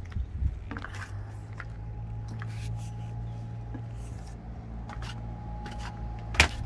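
Light scuffs and taps of flip-flop footsteps going down wooden ladder steps and across a fibreglass deck, over a steady low hum. There is one sharp knock near the end.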